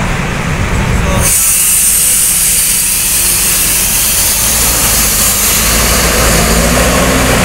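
Coach buses' diesel engines running as they move onto a ferry ramp, with a loud steady hiss that starts suddenly about a second in. Near the end an engine note rises and falls as a bus pulls up.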